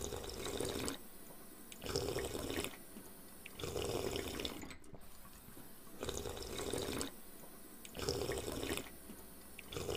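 Water sounds in six short bursts, each just under a second long, with quiet gaps between them.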